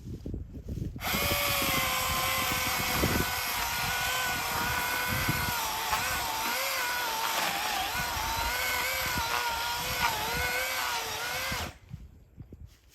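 Milwaukee M18 cordless electric chainsaw: its motor starts with a whine about a second in, runs steadily and dips in pitch again and again as the chain cuts into wood, then stops abruptly shortly before the end.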